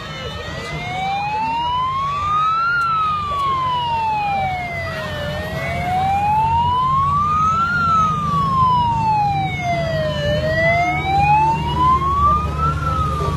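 Emergency-vehicle siren on a slow wail, rising and falling about every five seconds, over a steady low rumble of motorcycle engines.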